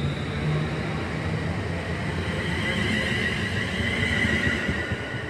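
London Midland Class 350 Desiro electric multiple unit pulling away from the platform: the wheels rumble on the rails under the whine of the traction motors, which strengthens and rises in pitch from about two seconds in.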